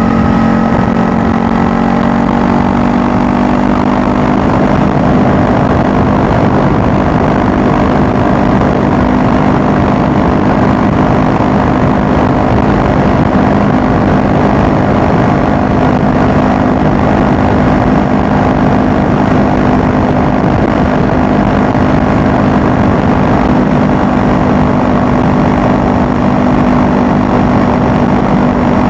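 Honda Rebel 500's parallel-twin engine pulling at highway speed, its pitch rising a little in the first few seconds and then holding steady, under a constant rushing haze.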